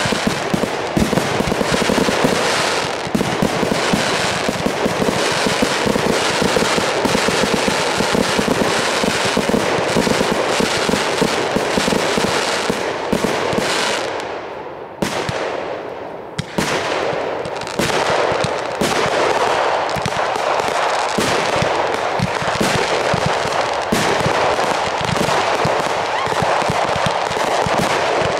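A fireworks display firing a rapid, continuous barrage of shots and shell bursts. It thins out briefly about halfway through, then picks up again.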